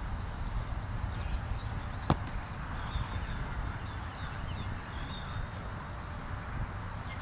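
Outdoor field ambience with steady wind noise on the microphone, broken by a single sharp slap about two seconds in, a football being caught in the hands; faint bird chirps come and go.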